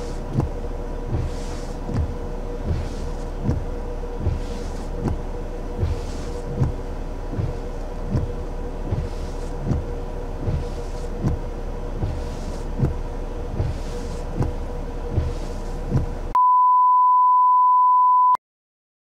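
Windshield wipers sweeping, heard from inside a stopped vehicle in steady rain: a regular soft thump about every three-quarters of a second and a swish about every second and a half, over a steady hiss and a faint hum. Near the end this cuts to a loud steady beep tone lasting about two seconds, then silence.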